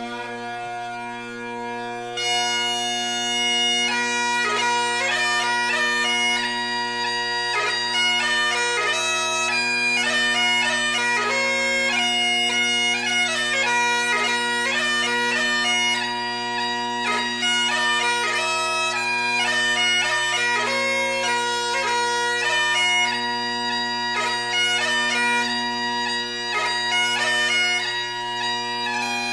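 Bagpipe music: steady low drones, with the chanter's melody coming in about two seconds in.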